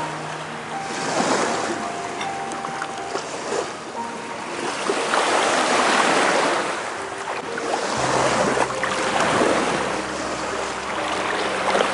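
Sea surf washing in, a rushing noise that swells and fades every few seconds, loudest around the middle. Soft background music of held notes sounds faintly underneath.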